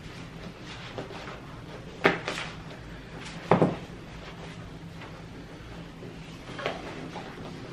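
Knocks and clunks of a gaming chair being handled during assembly: two sharp knocks about two seconds in, a louder, deeper thump about three and a half seconds in, and a lighter knock near the end.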